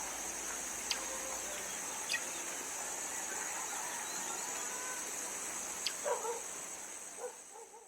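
Outdoor ambience: a steady high-pitched drone with a few sharp clicks, and short animal calls, clucking-like, about six seconds in; it fades out at the end.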